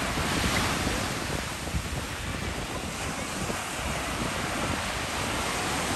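Small ocean waves breaking and washing in a steady hiss, louder in the first second, with wind buffeting the microphone in low, uneven rumbles.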